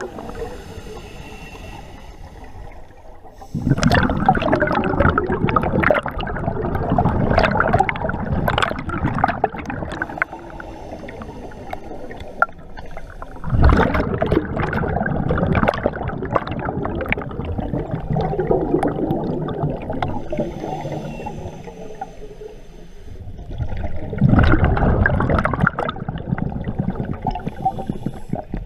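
Scuba regulator exhaust bubbles heard underwater: the diver's breath bubbling out in long gurgling bursts every several seconds, with quieter stretches between breaths.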